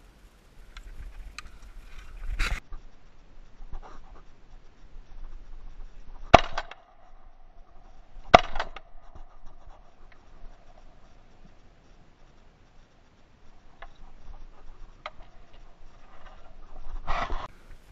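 Two shotgun shots about two seconds apart, very loud and sharp, with fainter knocks and gun-handling noise before and after.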